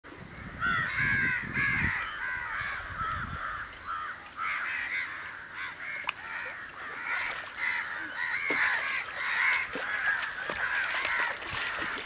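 A flock of birds calling, with many short, overlapping caw-like calls that keep coming through the whole stretch. A low rumble sits under them in the first two seconds.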